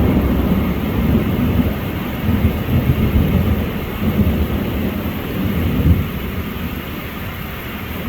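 Rain falling as an even hiss, under a loud, uneven low rumble that eases after about six seconds.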